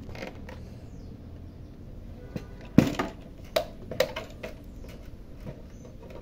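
Hard plastic clicks and knocks as a Toyota Yaris fuel pump module's parts are handled and the new pump is worked into its plastic housing: one sharper knock about three seconds in, with a few lighter clicks around it.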